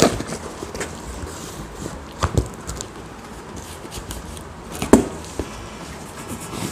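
Utility knife cutting through packing tape on a cardboard box, with a few sharp knocks on the cardboard; the loudest comes about five seconds in.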